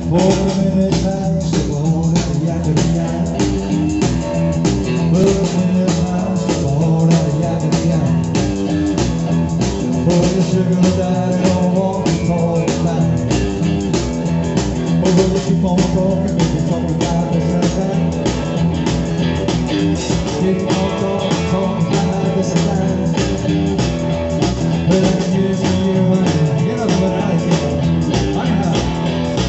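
Live rock and roll band playing: electric guitar, bass guitar and drum kit with a steady driving beat.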